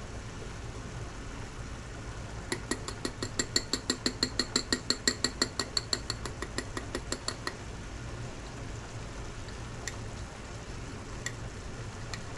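Wire whisk tapping with light metallic clicks, about five a second for some five seconds, then a couple of single clicks near the end. Butter and mushrooms sizzle faintly in a cast iron skillet underneath.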